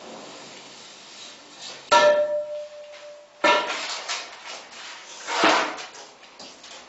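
Metal clanks from the aluminium rail of a wall-plastering machine being handled: two sharp strikes about two seconds in and a second and a half later, each ringing briefly, then a duller knock near the end.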